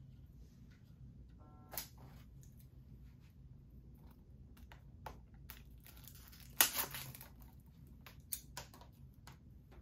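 Plastic wrapping being torn and crinkled off a 4K Blu-ray case: scattered crackles and rips, the loudest one about six and a half seconds in.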